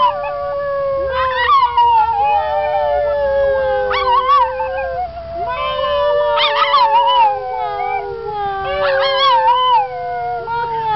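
Pug puppy howling: a string of long, wavering howls that slide slowly downward, with a second, lower drawn-out howl held beneath them.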